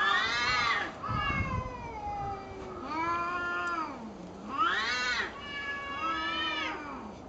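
Two cats yowling at each other in a fight standoff: a string of long, drawn-out wavering calls that rise and fall in pitch, some overlapping, about five in all.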